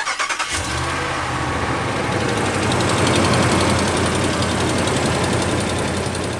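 A 2017 Ram 1500's 5.7 Hemi V8 cranks, catches about half a second in and runs at idle. It makes the well-known Hemi exhaust tick of an exhaust leak, here caused by a warped cast-iron exhaust manifold that has snapped a bolt.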